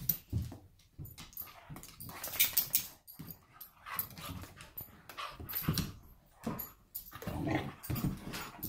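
Two dogs scuffling, their noises coming in short, irregular bursts with brief lulls between.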